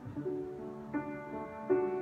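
Piano playing a slow, gentle passage: held notes and chords ringing and fading, with new notes struck about a second in and again near the end.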